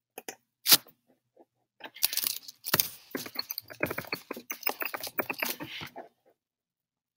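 A few sharp clicks, the loudest under a second in, then about four seconds of rapid clicking and clattering of small hard objects that stops suddenly.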